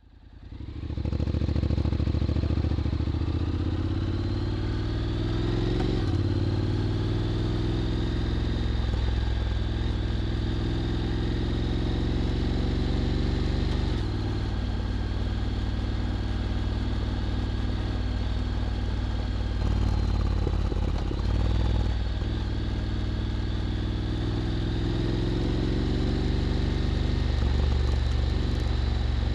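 Honda X-ADV 750's 745 cc parallel-twin engine running through an SC-Project SC1-S titanium slip-on exhaust, its note rising and falling slowly as engine speed changes, with a thin high whine above it. The sound fades in over the first second.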